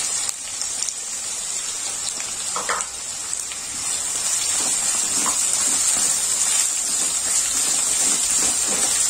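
Chopped onions, green chillies and curry leaves sizzling in hot oil in a kadai, a steady frying hiss. In the second half a spatula stirs them, with faint scrapes against the pan.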